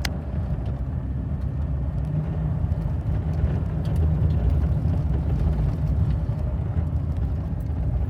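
Car being driven, heard from inside: a steady low rumble of engine and road noise that swells slightly midway.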